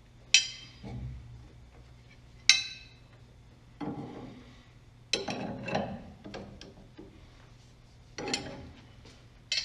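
Metal tools and parts clinking and knocking during steering rack work on a car: two sharp ringing clinks, then several clusters of clatter.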